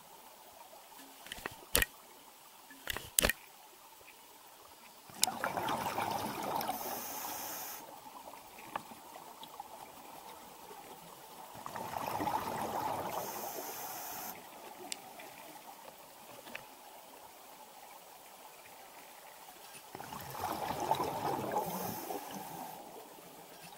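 Scuba diver breathing through a regulator underwater: three rushes of exhaled bubbles, each lasting two to three seconds, come about every seven to eight seconds. A few sharp clicks sound in the first few seconds.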